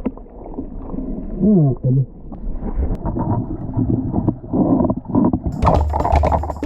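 Muffled water and handling noise on the camera, with a brief muffled voice about one and a half seconds in. Music with a drum beat comes in near the end.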